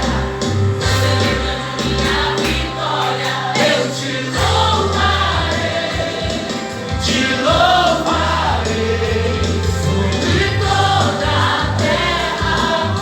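A song with a group of voices singing together over band accompaniment, with a strong bass holding long notes underneath.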